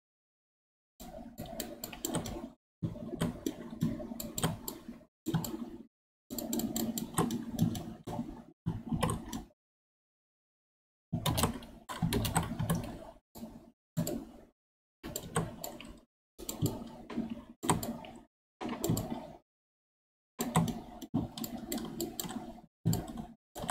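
Clicking and rubbing from working a computer keyboard and mouse, heard in short stretches of one to three seconds broken by dead silence.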